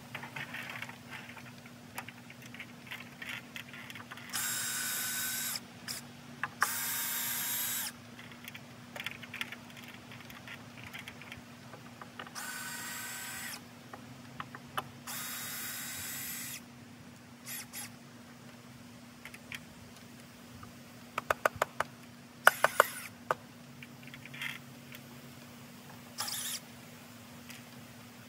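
Power drill driving screws into a wooden beam in about five short runs of a second or so each, with a quick cluster of sharp knocks and clicks between them.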